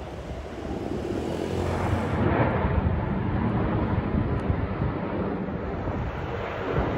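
Twin-engine jet airliner flying low overhead, a steady jet rumble that grows louder over the first two seconds and then holds.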